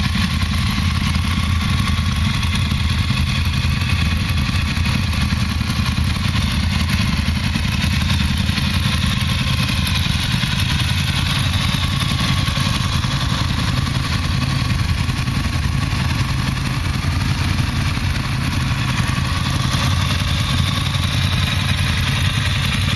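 Ducati motorcycles' V-twin engines idling steadily.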